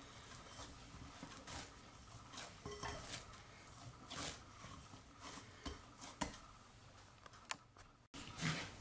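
Hands kneading a stiff yeast dough in a ceramic bowl: faint, irregular soft knocks and rubbing, with the bowl now and then knocking lightly.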